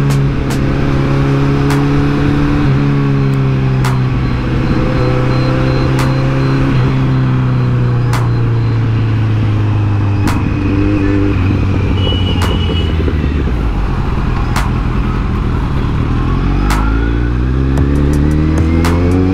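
Kawasaki Z900's inline-four engine and exhaust on the move. The engine note falls slowly as the bike eases off and slows, stays low for a couple of seconds, then climbs again over the last few seconds as it accelerates.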